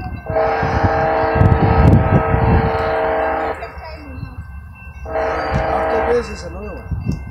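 Locomotive air horn sounding for a grade crossing as a train approaches: a steady chord of several tones held for about three seconds, then a shorter blast about five seconds in, over a low rumble.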